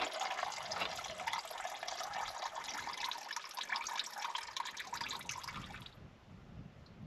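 Hot engine oil pouring in a steady stream from a Jeep's oil-pan drain hole into a drain bucket during an oil change. The pouring cuts off suddenly about six seconds in.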